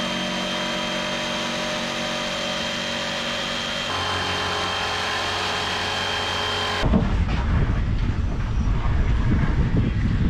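Electric jigsaw cutting through plywood, a steady motor whine that changes slightly about four seconds in. It stops about seven seconds in, giving way to a low rumbling noise.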